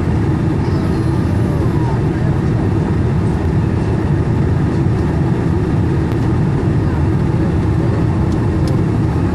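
Steady cabin noise inside a Boeing 747-400 airliner descending on approach: a constant low rumble of engines and airflow.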